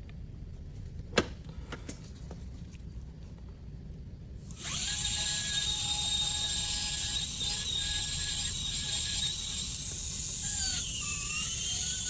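Slow-speed dental handpiece with a fine-grit amalgam polishing point, starting up about four and a half seconds in with a sudden high-pitched whine that then runs steadily. The whine dips briefly in pitch near the end. A single sharp click comes about a second in, before the handpiece starts.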